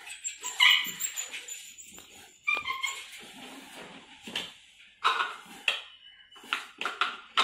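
A dog whining and barking off and on, several short high calls.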